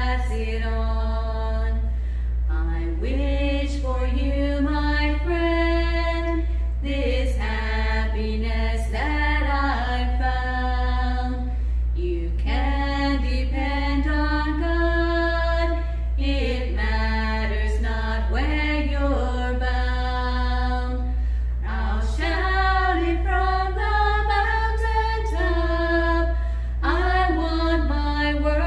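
Two women singing a song together without accompaniment, phrases of long held notes with short breaths between; a steady low hum runs underneath.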